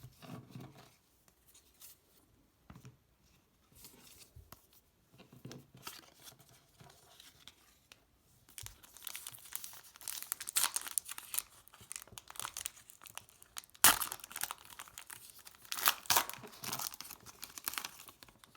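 A foil trading-card pack wrapper being torn open and crinkled: faint handling sounds at first, then a long run of sharp crackly rips and rustles through the second half, loudest about fourteen seconds in.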